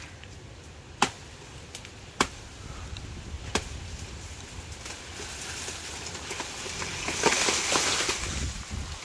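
Three sharp strikes into a saba banana plant's trunk, about a second apart, then a growing rustle and crackle of leaves as the plant topples over, loudest near the end.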